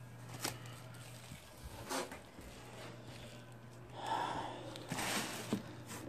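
Faint packaging handling: a couple of light clicks, then plastic bubble wrap and cardboard rustling from about four seconds in, over a steady faint low hum.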